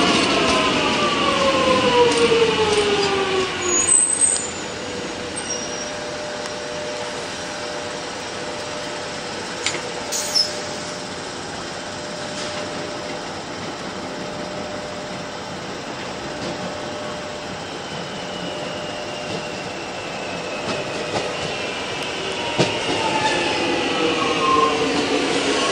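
X'Trapolis electric multiple unit trains: a whine of several tones falls in pitch over the first four seconds as a train slows, then a steadier hum with a brief high chirp about ten seconds in. Near the end the whine returns and grows louder as a train moves off past the platform.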